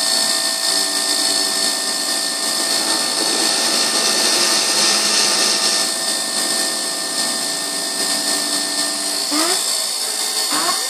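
Emco Compact 5 CNC lathe running, with its spindle turning and the tool taking repeated radius cuts in 6082-T6 aluminium: a steady mechanical whine and hiss. Two brief rising whirrs come near the end.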